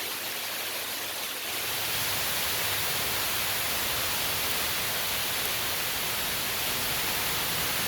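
Steady rain falling, an even hiss that grows a little louder about a second and a half in.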